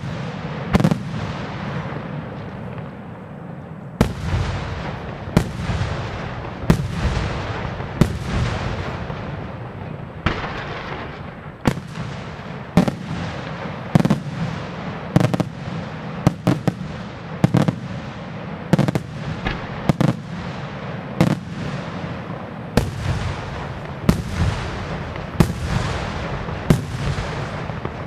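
Aerial fireworks shells bursting in a fast series of loud bangs, about one a second, each trailing off in an echo, over a continuous low rumble.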